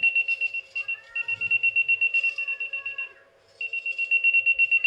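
Handheld wire tracer receiver beeping rapidly in a high single tone as it picks up the signal sent along a hidden wire. The beeping cuts out for about half a second a little past the middle, then resumes.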